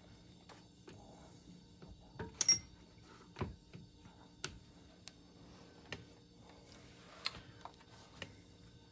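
Irregular sharp clicks and light knocks of metal hand tools and bolts being handled while an air-conditioning compressor is fitted back into place, the loudest knock about two and a half seconds in.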